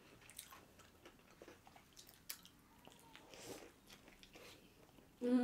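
Fried chicken sandwiches being bitten and chewed, faint, with a few small crisp crunches from the breading. Right at the end a voice starts a long falling "mmm".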